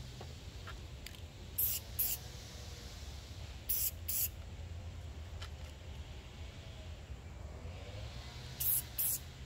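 Aerosol spray paint can giving short bursts of spray, in three quick pairs.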